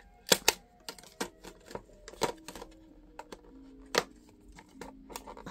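Clear plastic packaging crinkling and crackling as hands unwrap a boxed set of washi tapes. The sound is irregular sharp crackles, with louder snaps about a third of a second in, at half a second, just after two seconds and at four seconds.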